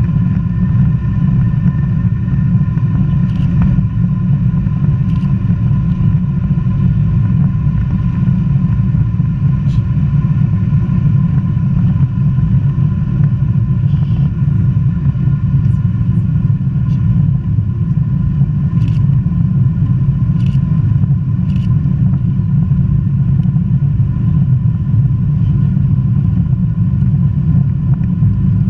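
Cabin noise of a Boeing 777-200ER's Rolls-Royce Trent engines at high thrust: a loud, steady rumble with a few steady tones above it and a few faint clicks.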